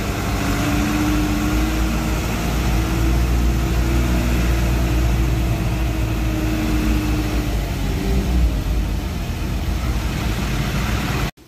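Isuzu Elf truck's diesel engine running at low speed, heard from inside the cab as a steady low rumble with a faint drifting hum while the truck creeps through traffic. The sound cuts off abruptly near the end.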